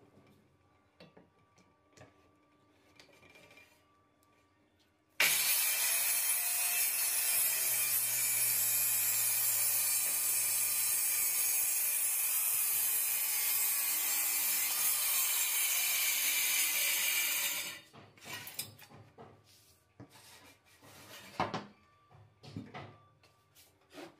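Handheld corded circular saw starts suddenly about five seconds in and runs for about twelve seconds while crosscutting a plywood board, then stops. Light knocks and wood handling follow as the saw is set down and the board is moved.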